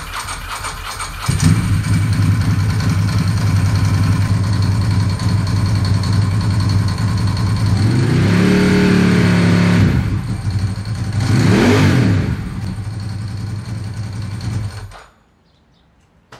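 Ducati 916's 90-degree V-twin cranked over on the starter, catching after about a second and idling, revved up and back down twice around the middle, then switched off near the end. It is being run to check charging: the battery drops to 11.8 volts while it runs, so the regulator rectifier is not charging it.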